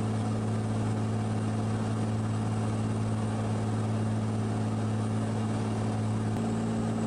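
Cirrus SR22's six-cylinder piston engine and propeller droning steadily in cruise flight, a constant low hum with no change in pitch or power.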